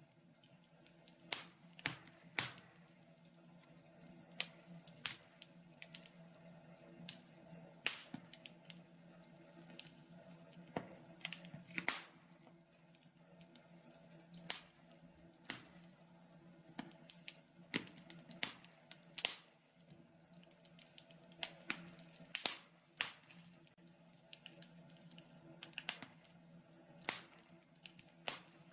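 Wood fire crackling in a fireplace: irregular sharp pops and snaps, some louder than others, over a faint steady hum.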